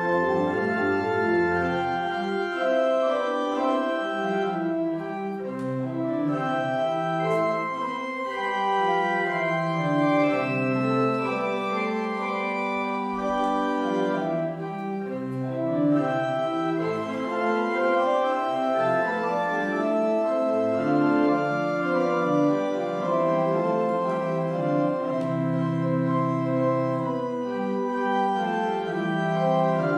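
Church organ playing an instrumental prelude of held chords in several voices over a moving bass line.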